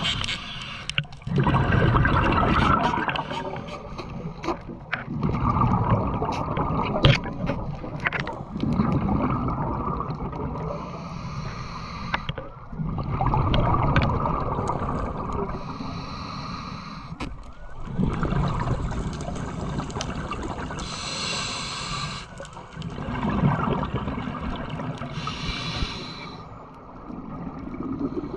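Scuba diver breathing through a regulator underwater: loud bubbling bursts of exhaled air about every four to five seconds, with a shorter hiss between them.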